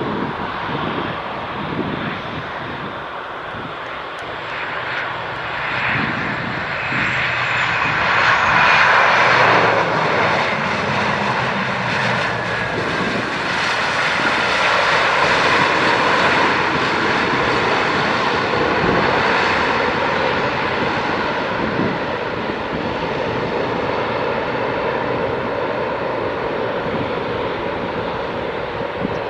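Jet airliner's engines passing close by, the noise building to its loudest about eight to ten seconds in and staying loud, with a whine that falls in pitch as the aircraft goes past.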